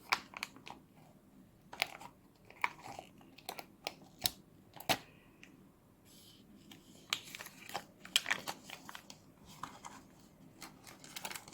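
Plastic toy packaging being handled: scattered crinkles, rustles and light clicks as a card is worked out from underneath.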